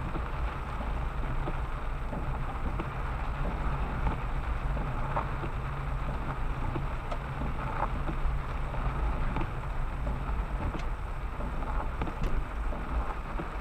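Rain and wind: a steady rushing noise with wind rumbling on the microphone and scattered small ticks.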